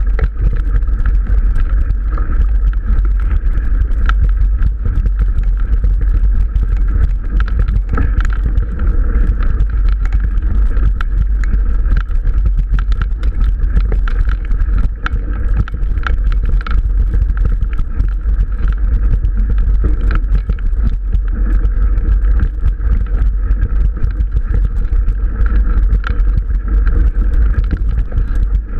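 Mountain bike rolling over a rough, overgrown dirt track: a steady low rumble with constant rattling and clicking as the bike and its mounted camera shake over the bumps, and grass brushing past.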